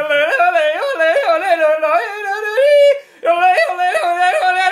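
A man yodeling fast, his voice flipping rapidly back and forth between a low note and a high note on repeated 'yo-le' syllables, with a brief pause for breath about three seconds in.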